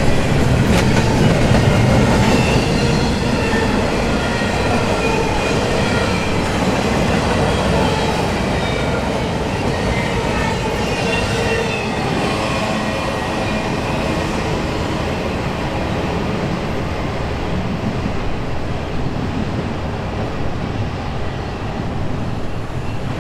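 Double-stack intermodal freight train's well cars rolling past on steel rails: a steady rumble of wheels and cars, with faint high wheel-squeal tones coming and going. The sound eases off gradually as the end of the train moves away.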